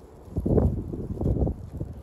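Puppies scuffling in long grass right by the microphone: a burst of rustling and low thuds starting about half a second in and lasting around a second.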